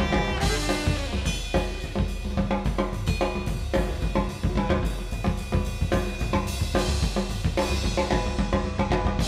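A brass band's drummer playing a break on the drums: snare, bass drum, hi-hat and cymbals in a busy, driving rhythm.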